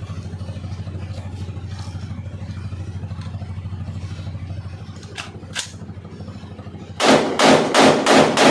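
Pakistani-made copy of an M4 carbine firing about five quick single shots, roughly three a second, starting about seven seconds in. Before that a steady low hum and two sharp clicks about five seconds in.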